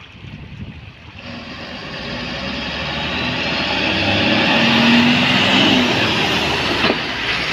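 A diesel dump truck approaching and driving past close by, growing steadily louder, its tyres splashing through wet mud. There is a single sharp knock near the end.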